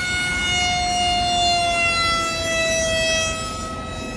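The electric motor and propeller of an RC foam-board F18 whining steadily in flight, its pitch sliding slowly lower.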